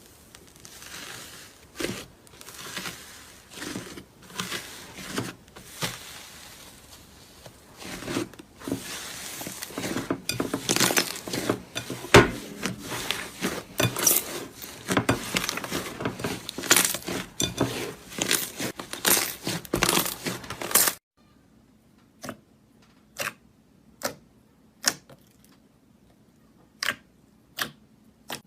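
Slime being squished and stretched by hand, a dense crackling full of sharp pops and clicks. After a sudden cut near the end it turns to separate sharp pops about once a second over a quiet background.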